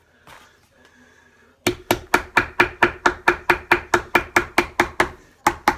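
Rapid mallet taps, about five a second, knocking edge trim flat into the edge of a wooden camper-furniture panel. The tapping starts about a second and a half in, with a short break near the end. Each blow carries the same short ringing note from the board.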